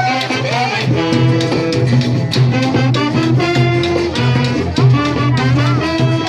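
A band playing upbeat Latin dance music: sustained melodic notes over steady, busy percussion.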